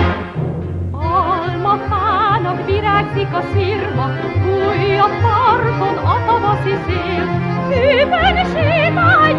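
Background orchestral music, with steady bass notes under a high melody line sung or played with wide vibrato. It breaks off briefly and a new passage begins about a second in.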